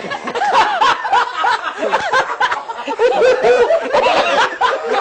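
A group of men laughing loudly and talking over one another.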